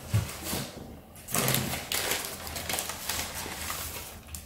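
Rummaging in a box of packed items: a bump at the start, then a run of rustling and crinkling with many small clicks as wrapped pieces are handled and unwrapped.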